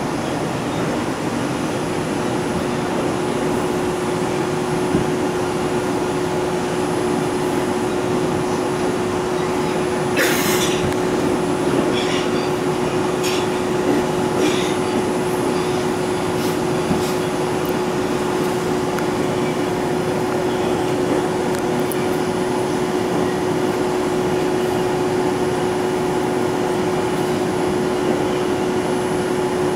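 Interior running noise of a Bombardier R142 subway car travelling through a tunnel and past a station: a steady rushing rumble with a steady hum that holds one pitch. A handful of sharp clicks come between about ten and seventeen seconds in.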